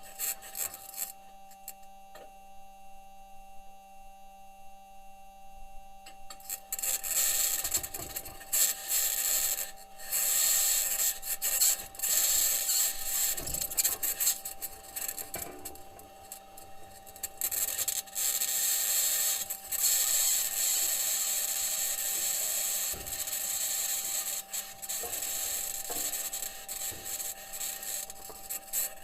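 Perseverance rover's metal wheels rolling and scraping over Martian rock, picked up by the rover's own microphone: irregular rasping and rattling over a steady high whine and a low hum. The scraping is faint for the first several seconds and grows much louder from about seven seconds in.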